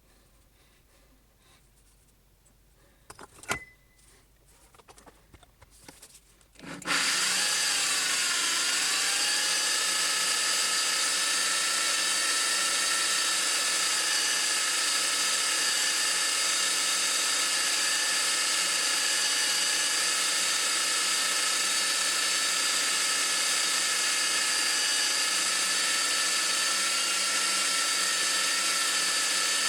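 A sharp click and faint crackling, then about seven seconds in a blower on a homemade propane furnace starts abruptly. It runs loud and steady with a high whine from then on.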